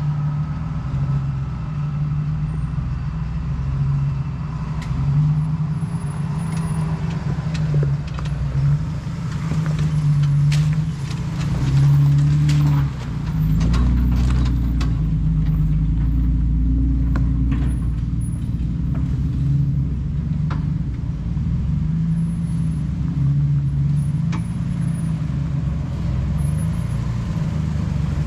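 Jeep engine running steadily at low trail speed, with a heavier low rumble from about halfway through. Scattered knocks and clicks sound over it, mostly in the middle.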